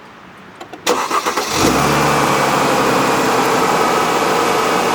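Mercedes M272 V6 petrol engine being started cold: the starter cranks briefly about a second in, the engine catches and settles into a steady fast cold idle, with a thin steady high tone running over it.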